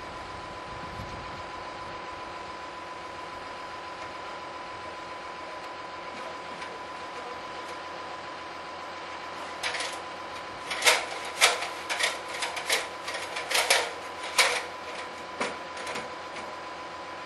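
Nails being driven into wooden roof framing: about a dozen sharp, irregularly spaced strikes over some six seconds, starting about ten seconds in. Before them only a steady background hum with a faint constant tone.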